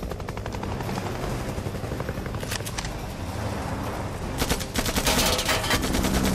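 Rapid automatic gunfire in bursts over the steady drone of a helicopter's rotor. A fast rattle opens, a short burst comes about halfway, and the loudest, densest burst comes near the end.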